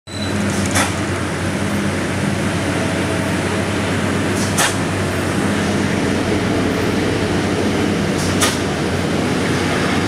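Steady low drone of vehicle engines climbing the mountain road, with three short sharp clicks about four seconds apart.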